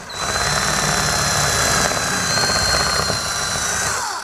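DeWalt 18-volt cordless drill running steadily under load as its bit drills out an old taillight rivet, with a steady high whine; it slows and stops near the end.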